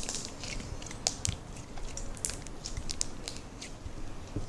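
Slime being folded and pressed by hand, its trapped air bubbles popping in a run of irregular small crackling clicks.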